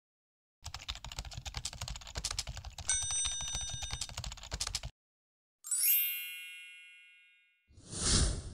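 Outro sound effects: rapid keyboard-typing clicks for about four seconds with a bell ding about three seconds in, then a bright chime that rings out and fades, and a short whoosh near the end.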